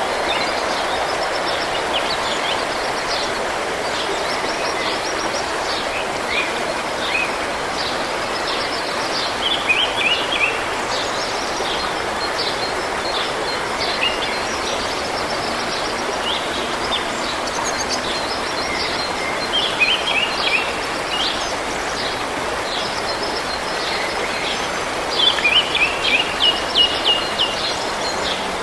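A forest stream running with a steady rush of water, while songbirds sing over it in short phrases of quick repeated high notes, most loudly about a third of the way in, two-thirds in, and again near the end.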